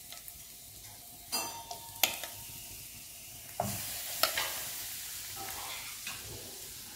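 Marinated chicken pieces sizzling in a little hot oil in a non-stick frying pan as they are laid in one after another, with a few short knocks as pieces go down. The sizzle grows louder about halfway through as more pieces are added.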